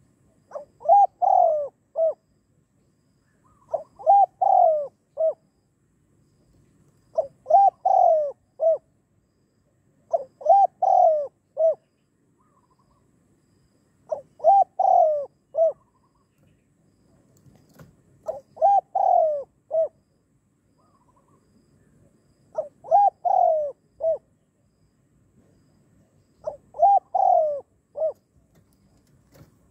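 Spotted dove singing its cooing song: eight phrases, each a short opening note followed by two or three coos, repeated about every four seconds.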